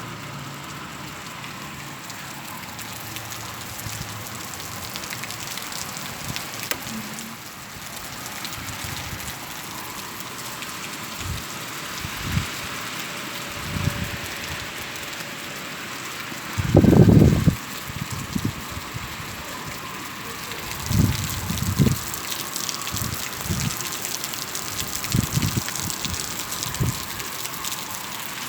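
Steady rain falling, growing heavier in its last third. About 17 seconds in, a loud low rumble lasts around a second, and several shorter low thumps follow later.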